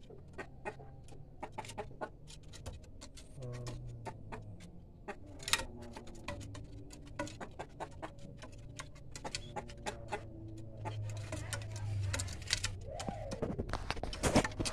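Wild-caught junglefowl rooster moving restlessly in a bamboo cage: many sharp clicks and taps of its feet and beak on the bamboo slats, with wing flutters. The bird is still untamed and frightened, looking for a way out.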